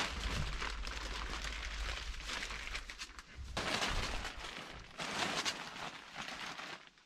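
A sheet of clear plastic patterning film crinkling and rustling as it is handled and pressed against a tent. There are louder crackling bursts about three and a half and five seconds in.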